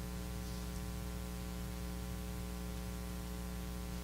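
Steady electrical mains hum with a buzzy row of overtones and a background hiss, unchanging throughout.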